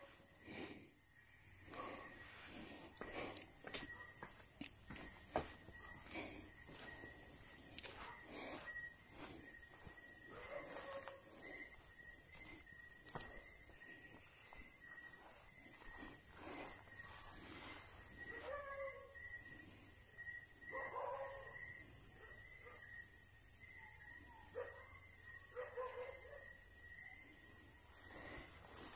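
Footsteps swishing and crunching through tall grass at a walking pace, over a steady chorus of night crickets. A dog barks faintly a few times in the second half.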